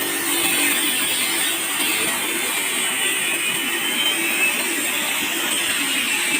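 A sharpening machine running steadily, with an even, noisy machine sound that does not change.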